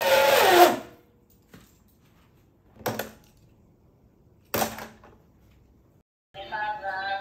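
A toy football coin bank's electronic tune, overdriven on 25 volts, sliding down in pitch and dying away within the first second as its power is cut. Then two sharp plastic clicks from the toy's player figure being handled, and near the end a synthesized song starts.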